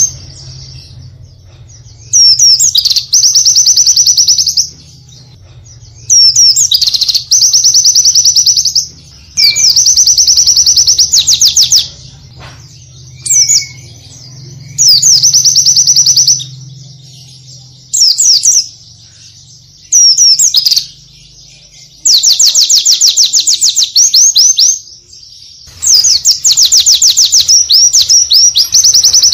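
White-eye (pleci) singing in repeated loud, high, very fast trills, each burst a second or two long with short pauses between. It is the rapid-fire song style that bird keepers call tembakan.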